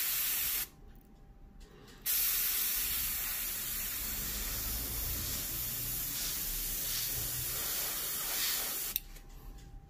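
Gravity-feed airbrush hissing as it sprays light passes of matt varnish to seal the paint and chipping layers: a short burst at the start, a pause of about a second and a half, then one long steady spray of about seven seconds that cuts off sharply near the end.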